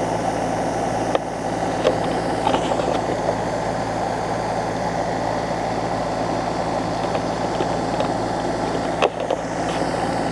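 Farm machinery's diesel engine running steadily with a constant low hum, with a few light clicks and knocks, one near the start and one about nine seconds in.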